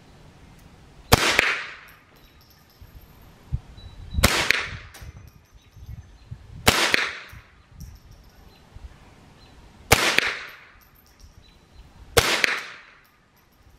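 Ruger 10/22 semi-automatic .22 LR rifle firing five single shots, about two to three seconds apart, each a sharp crack with a short echo trailing off.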